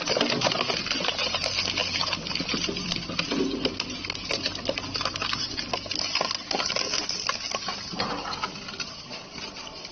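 Twin-shaft shredder running, a steady low motor hum under dense, irregular sharp cracking as its cutters crush and tear plastic bottles.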